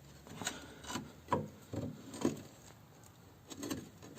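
Pry bar levering the front lower control arm of a VW Passat B3, giving several short metal knocks and scrapes. The arm moves only its normal travel on an intact rubber bushing.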